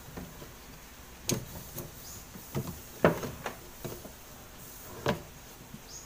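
Irregular knocks and clicks of a rubber fan belt and the metal pulleys of a Whirlpool washing machine being handled as the belt is refitted over the motor and drum pulleys. About eight short knocks, the sharpest about three seconds in.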